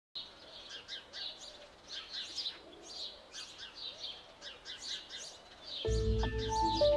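Birds chirping in many short, high, overlapping calls. About six seconds in, music with a deep bass and held notes comes in louder over them.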